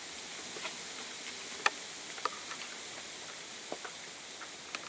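Steady background hiss with a handful of faint, sharp clicks scattered through it, the sharpest about one and a half seconds in.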